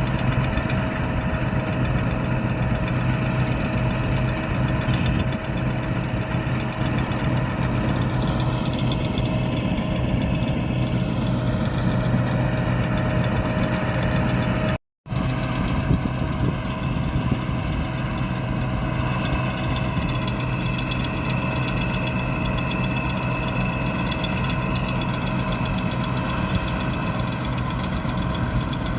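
Combine harvester running steadily, its engine and machinery giving a continuous hum with a few held tones. The sound drops out completely for a moment about halfway through.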